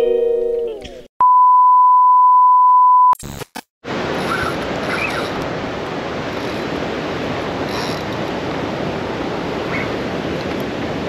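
The last notes of guitar intro music die away, then a single steady high beep sounds for about two seconds and cuts off suddenly. After a brief silence with a couple of clicks, a steady rushing noise, like wind on the microphone, fills the rest.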